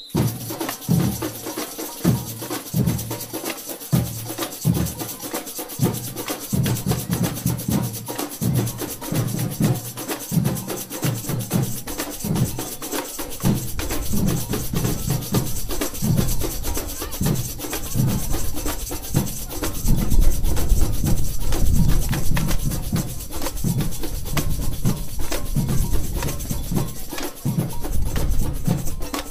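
Samba bateria (street samba percussion band) playing a driving rhythm: deep surdo bass drums under a dense pattern of sharper drum and wood-block strokes, with a steady shaker-like shimmer on top. The bass drums grow heavier about halfway through.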